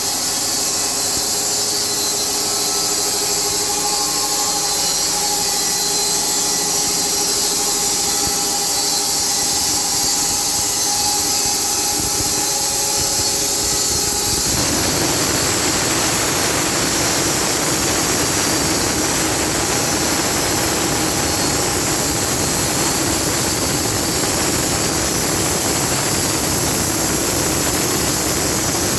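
SMFA band sawmill running with a steady machine whine. About halfway through, a rough, harsh sawing noise takes over as the band blade cuts through the log.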